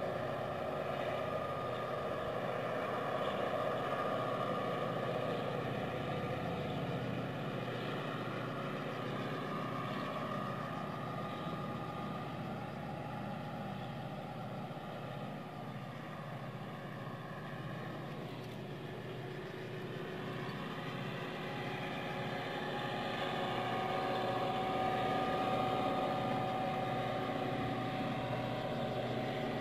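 Diesel locomotive engine running steadily, with a low rhythmic beat under several steady tones; it eases slightly a little past the middle and builds again toward the end.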